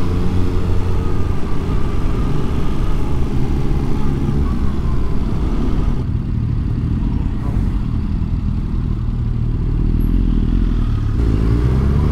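Yamaha R7's parallel-twin engine with its stock exhaust running under way; about halfway through it eases off to a lower rumble, then picks up again near the end.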